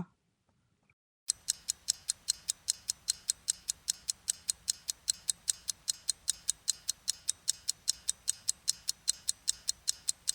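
Clock-ticking sound effect counting down the answer time, about four even ticks a second, starting a little over a second in.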